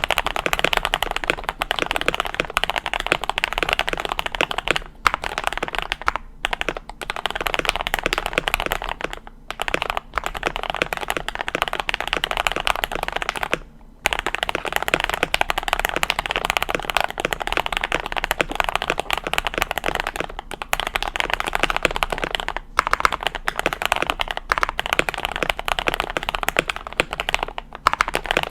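Fast, continuous typing on a KBD67 Lite R2 custom mechanical keyboard with lubed Gateron Milky Top Yellow linear switches, a polycarbonate plate, foam and tape mod, and PBT keycaps. The key clacks come in a dense stream, broken by a few brief pauses.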